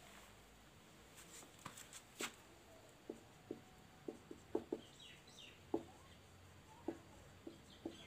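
Marker writing on a whiteboard: a run of faint short taps from the tip, with a few brief squeaks, mostly in the second half.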